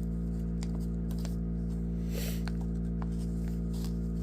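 Steady low electrical hum, with faint light clicks and crinkles of a plastic pouch being handled.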